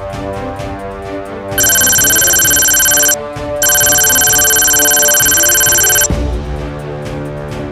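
Background music with a loud, steady electronic ringing tone laid over it twice: once for about a second and a half, then after a short gap for about two and a half seconds.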